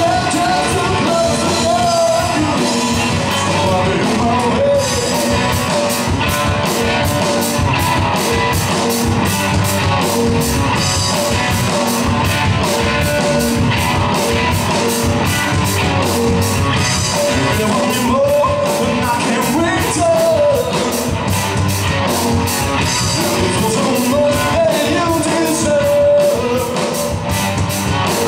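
Live rock band playing: lead vocals sung over electric guitars, bass guitar and a drum kit keeping a steady beat on the cymbals.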